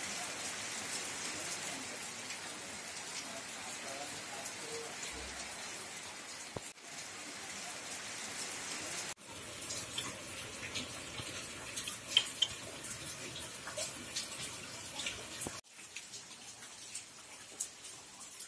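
Steady rain falling on a wet concrete courtyard, an even hiss. From about nine seconds in, separate drops and splashes stand out more sharply. Near the end it becomes a quieter patter with scattered drips.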